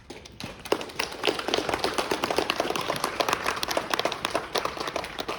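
Audience clapping and applauding, swelling about half a second in and tapering off near the end.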